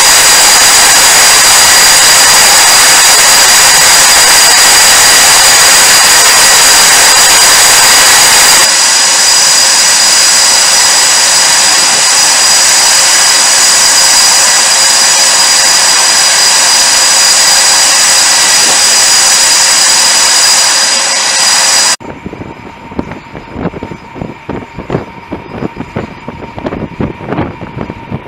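Jet engines running at close range: a loud steady rush with a high, piercing turbine whine. About 22 seconds in it drops sharply to a quieter engine hum broken by irregular low bumps.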